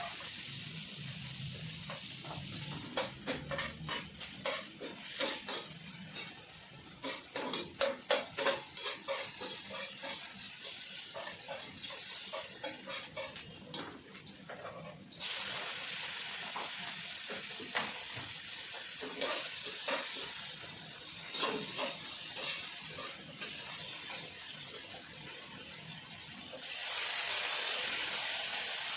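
Food sizzling in hot oil in a pan while a spatula stirs it, scraping and clattering against the pan for much of the first half. The sizzle suddenly grows louder about halfway through, and again near the end.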